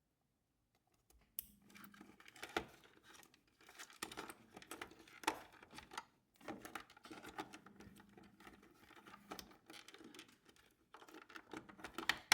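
Faint, irregular rustling, scraping and small plastic clicks of hands plugging a wiring-harness connector into a refrigerator icemaker and working the wires into place, starting about a second and a half in.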